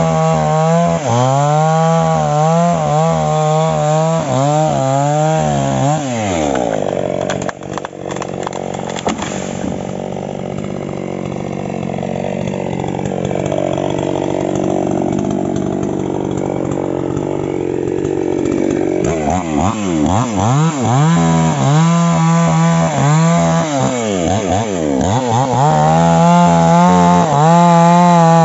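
Falcon two-stroke chainsaw at full throttle cutting through a tree trunk, its pitch wavering under load. About six seconds in it drops to idle, with a few sharp knocks, and idles for some ten seconds. It is then revved up and down several times before opening up again into a new cut near the end.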